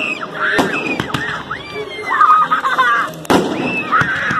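Aerial firework shells bursting: three sharp bangs, the strongest a little over three seconds in. High tones rise and fall between the bangs and are loudest around the middle.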